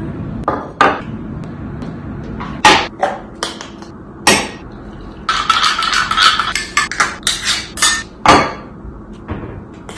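Hard objects knocking and clattering: irregular sharp knocks, with a fast run of rattling taps in the middle of the stretch and a loud knock near the end.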